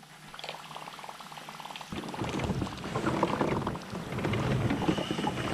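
A River2Sea Whopper Plopper topwater lure being retrieved across the surface, its spinning tail churning the water into a continuous gurgling, bubbling sound that grows fuller and louder about two seconds in.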